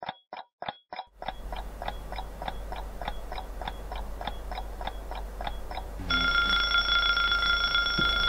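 A clock ticking about four times a second, then about six seconds in a digital alarm clock's alarm goes off with a steady ringing tone.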